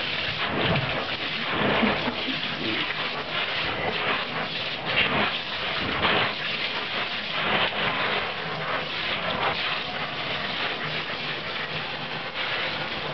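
Running water splashing steadily, with irregular sharper splashes through it.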